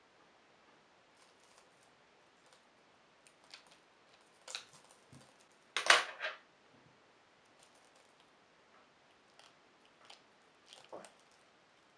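Scissors snipping and clicking a few times at the tied neck of a rubber balloon packed with water beads, cutting off its tip. The loudest cut comes about halfway through, with a couple more clicks near the end.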